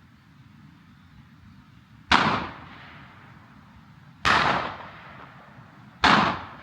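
Three shotgun shots about two seconds apart, each a sharp report that dies away over about half a second.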